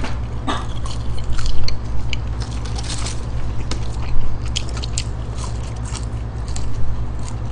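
Close-up chewing and biting of McDonald's french fries: irregular crisp clicks and mouth smacks, over a steady low hum.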